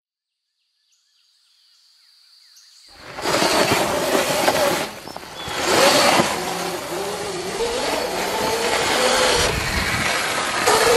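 Sur-Ron electric dirt bike being ridden hard on a dirt track: a wavering motor whine over a loud rush of tyre and riding noise, swelling and dipping with the throttle. It starts about three seconds in, after faint high chirps.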